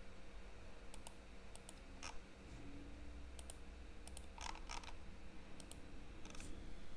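Faint computer mouse clicks, scattered and some in quick pairs, over a faint steady hum.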